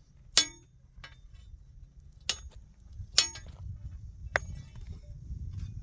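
A metal hand tool striking hard, about five irregular sharp clinks, each with a brief metallic ring, over a low rumble.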